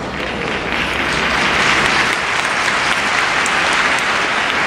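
Large stadium crowd applauding, swelling about a second in and then holding steady.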